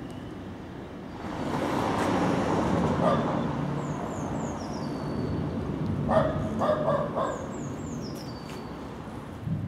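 Gotha-built tram moving at close range: a steady rolling noise that comes up about a second in. A few short, sharp sounds come close together about six seconds in.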